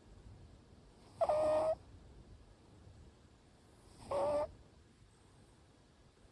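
Short-legged Munchkin cat snoring in its sleep: two short, high-pitched snores, each about half a second long, about three seconds apart.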